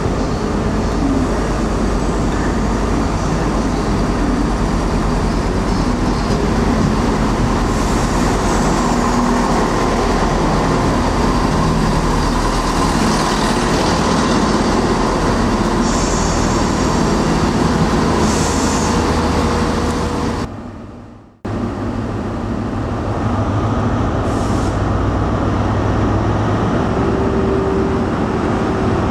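Diesel passenger trains running at a station platform: a steady engine drone with several brief high-pitched squeals. The sound cuts out for a moment about two-thirds through, then the engine drone resumes.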